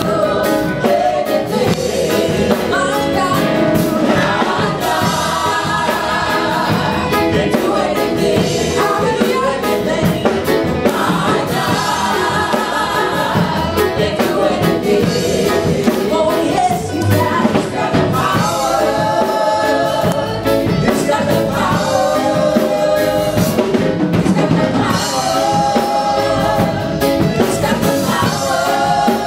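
A gospel band and group of singers performing a worship song, voices singing together over a drum kit and other instruments.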